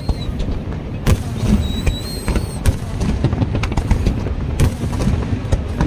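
Fireworks going off: several sharp bangs spread over a few seconds above a constant low rumble, with a faint high whistle partway through.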